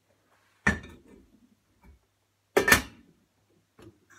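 Two sharp knocks about two seconds apart, hard kitchen things being handled and set down, with a few faint small clatters between them.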